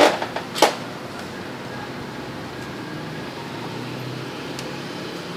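Steady background noise with a faint low hum, after a brief click under a second in.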